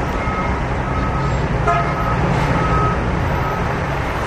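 Cars driving slowly past in a line with engines running, a steady low traffic rumble, overlaid with a few short high-pitched toots and one sharp click just under two seconds in.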